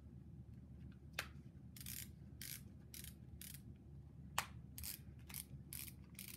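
Faint, short scratchy rustles of a fabric wrist-stabilising glove being pulled on and its straps fastened, about ten of them in quick succession, with one sharper click about four seconds in.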